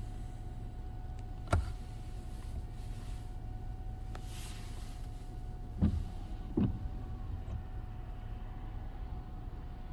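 A motor running steadily as a low hum with a thin steady whine above it, broken by three sharp knocks.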